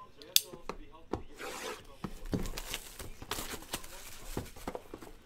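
Plastic shrink wrap being torn and peeled off a sealed trading-card box: irregular crinkling, rubbing and scratching of the film, with a few sharp clicks.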